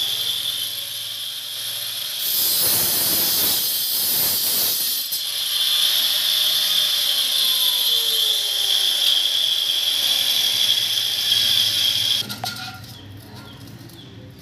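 Handheld angle grinder with a thin cutting disc running with a high whine, cutting a gold-coloured tile trim strip with a harsh hiss. It is switched off about twelve seconds in.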